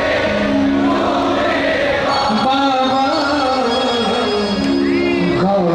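Live Hindi devotional bhajan: a male singer sings into a microphone over amplified musical accompaniment, with low notes held steadily beneath the wavering vocal line.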